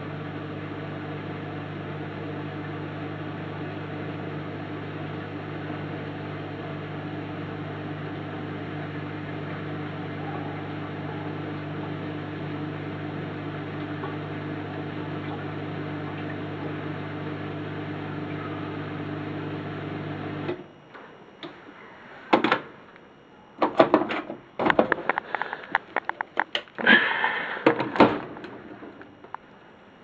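Bosch dishwasher's pump humming steadily, then cutting off abruptly about twenty seconds in. Then a run of sharp clicks and clatters as the door is unlatched and opened onto the wire racks.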